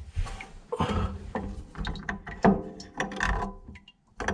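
Irregular clicking and rattling of the faucet's small plastic mounting nuts being handled and fitted onto the faucet underneath the sink, with a short pause near the end.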